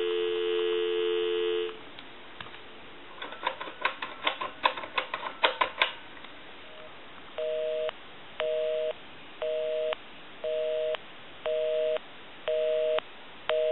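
Telephone dial tone, a steady two-tone hum, stops about two seconds in when dialing begins. A quick run of Touch-Tone key beeps follows as a number is dialed on a Western Electric 10-key desk phone. Then a busy signal pulses on and off about once a second, because the line called is in use.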